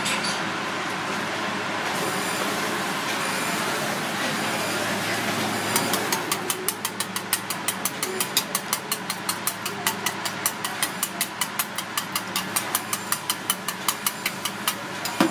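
A thin metal utensil beating egg whites in a small stainless steel bowl, clicking rapidly and evenly against the bowl's side. The clicking starts about six seconds in, over a steady background hum.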